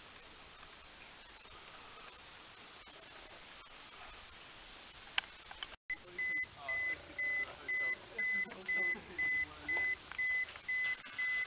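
Terra-P dosimeter alarm beeping in rapid, evenly spaced high-pitched pulses from about six seconds in. The alarm is tripped by a dose rate of about 56 µSv/h at a contaminated drain cover. A steady high insect hiss runs underneath throughout.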